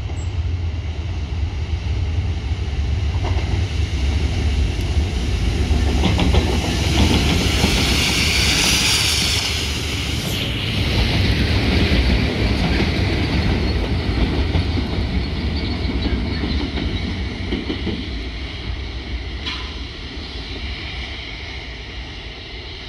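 Rail head treatment train hauled by Class 66 diesel locomotives passing at speed: the locomotives' two-stroke V12 diesel engines rumble while the high-pressure water jets hiss, blasting leaf mulch off the railheads. It grows louder as it comes through, is loudest about halfway, then fades as the train draws away.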